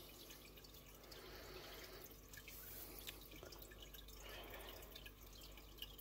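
Near silence with faint scattered small ticks and rustles of paracord being handled while a knot is started.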